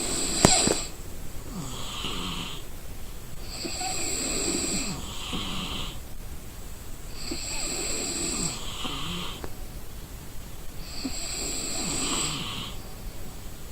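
A sleeping person snoring in slow, regular breaths, one snore about every four seconds. A single sharp click sounds about half a second in.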